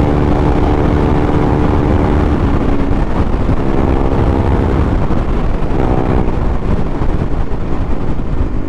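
KTM Duke 390's single-cylinder engine running through an aftermarket barrel exhaust at highway cruising speed, its note holding steady and rising briefly about six seconds in, with heavy wind rumble on the microphone.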